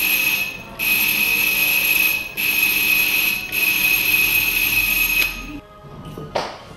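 Electric buzzer sounding in long, steady buzzes with brief breaks about a second, two and a half and three and a half seconds in, then stopping about five seconds in.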